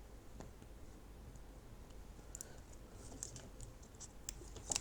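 Faint scattered clicks and crinkles of thin protective plastic being picked at and peeled off a USB cable's connector, busier in the second half.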